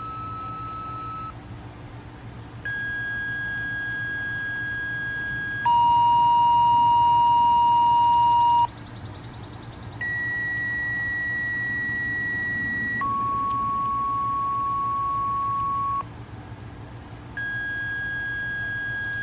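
A series of steady electronic beep tones, each held about three seconds at a different pitch, with a short pause after every second tone or so.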